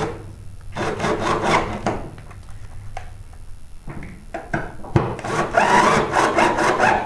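Cordless drill driving screws into the sheet-metal ballast mounting plate. There are two long runs, one about a second in and another from about five seconds in, with a few sharp clicks between them.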